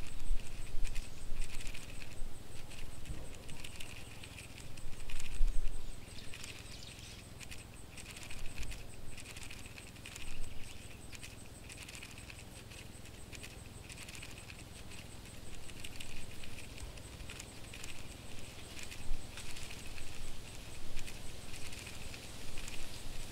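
Insect sound effect: light, irregular scuttling clicks with a soft high chirp-like burst repeating about once a second, over a low steady hum.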